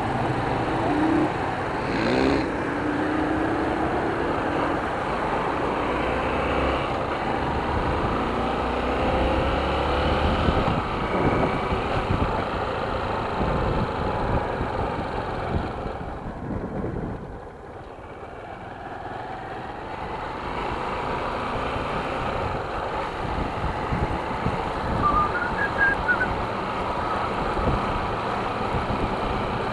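Motorcycle heard from on the bike: the engine pulls away with a rising pitch in the first few seconds, then runs on under steady road and wind noise, which dips quieter for a few seconds past the middle.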